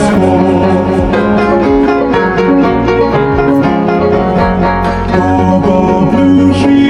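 Bright instrumental music for a children's song, with keyboard and plucked-string parts over a steady beat.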